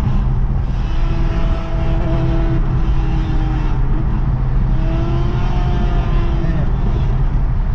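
Road noise inside a car cruising on a freeway: a steady low rumble of engine and tyres with a droning engine note that rises and falls slightly.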